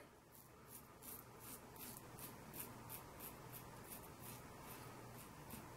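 Wolfman WR1-OC safety razor with a Polsilver Super Iridium blade scraping through lathered stubble in short, quick strokes, about four a second; faint.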